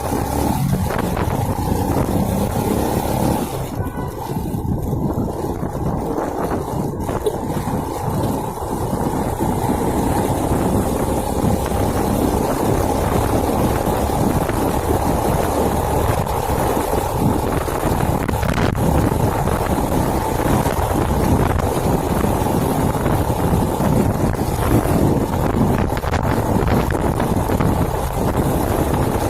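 A small 110cc SYM RV1-2 motorcycle engine running steadily on the move, with wind noise on the microphone.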